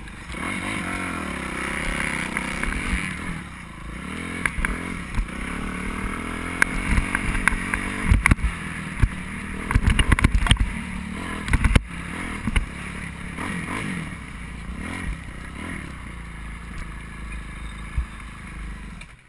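Motocross dirt-bike engines revving, their pitch rising and falling over and over, with knocks and thumps close to the microphone.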